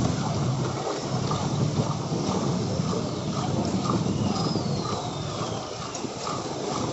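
Steady street traffic rumble, with the slosh and clink of ice being stirred by a steel ladle in a big steel pot of green milk soda.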